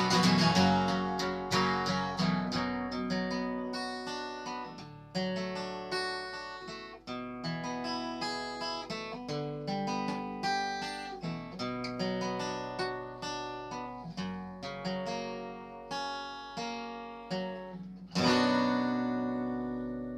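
Acoustic guitar played alone, picking broken chords note by note at a steady pace, then one last strummed chord about eighteen seconds in that is left to ring out.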